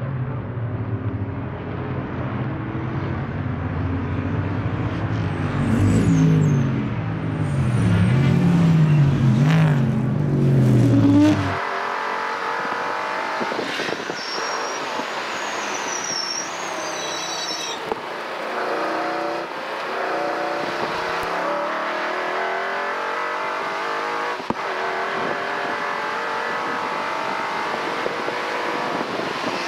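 Classic race car engines passing on a circuit, their pitch rising and falling as they go through the gears. About a third of the way in the sound cuts to the cockpit of a 1963 Shelby Cobra 289, its Ford 289 V8 running hard at track speed with a high whine at times.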